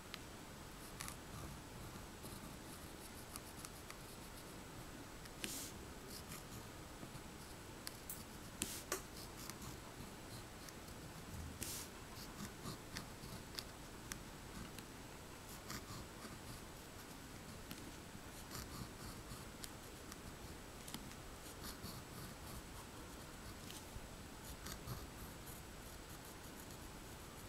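Fine-tipped pen scratching and tapping on paper in short, quick strokes as small stars and lines are drawn; faint, with a few sharper ticks scattered through.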